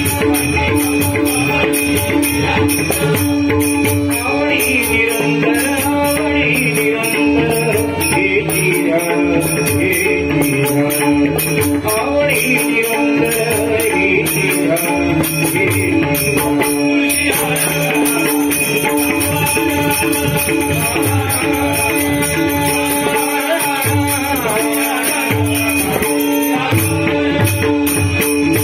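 Bhajan music: steady held notes under a wavering melody, with small hand cymbals jingling throughout.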